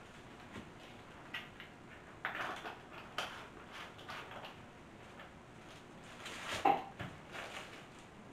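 Light clicks, rattles and scrapes of a plastic lye container being handled and its lid twisted, with a louder clatter about six and a half seconds in.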